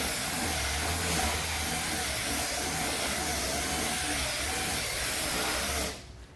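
A powered cleaning machine runs steadily with a strong hiss over a low motor hum, then cuts off about six seconds in.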